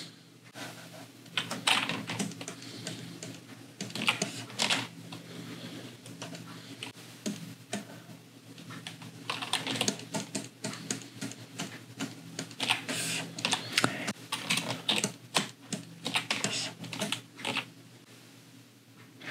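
Irregular clicks and taps of a computer keyboard and mouse over a low steady hum.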